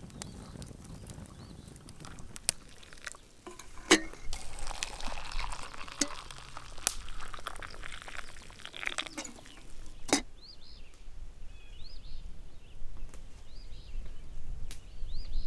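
Water poured from a camp kettle into a plastic mug, a steady pour of about five seconds with a few clinks around it. After that, birds calling with short high chirps.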